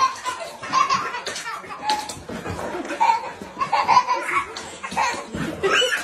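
A toddler laughing in short, repeated bursts of high-pitched giggling.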